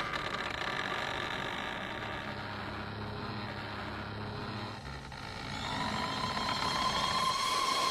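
Sustained electronic drone of several steady tones, with a higher tone swelling in about halfway through.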